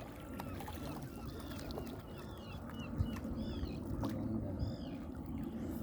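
Birds calling over and over in short, arching high notes, several a second and denser in the second half, over a steady low background rumble.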